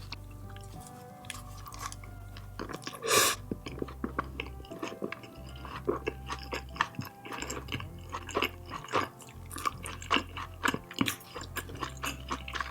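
Close-miked chewing of a mouthful of food, with many small wet mouth clicks and smacks and one louder crunchy noise about three seconds in.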